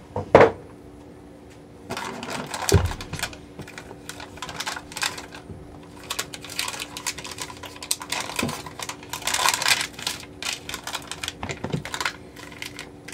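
Freezer paper and plastic bags crinkling and rustling as a block of soap is unwrapped by hand, in irregular bursts of crackling and clicks. A sharp thump comes just after the start and a duller one nearly three seconds in, over a faint steady hum.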